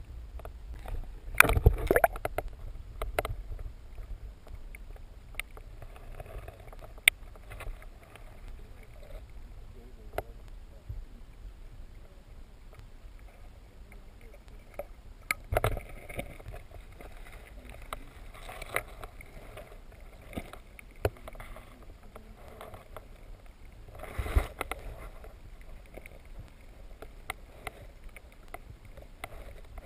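Muffled underwater sound picked up by a submerged camera: a low steady rumble with scattered sharp clicks and knocks, and louder rushing, bubbling bursts about 2 seconds, 15 seconds and 24 seconds in.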